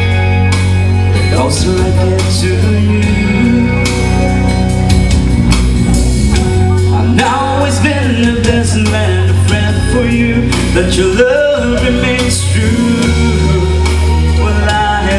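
A man singing a slow pop-rock ballad live into a handheld microphone, over accompaniment with guitar and a steady bass line.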